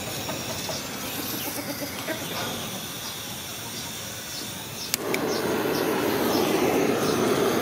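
Handheld butane torch on a gas canister clicking as it is lit about five seconds in, then its flame burning with a steady rushing noise.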